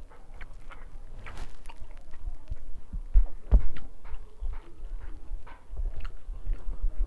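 A hand mixing rice and fish curry on a steel plate: soft wet squishes and light clicks of fingers on the metal, with dull low thumps, the loudest a little past three seconds in.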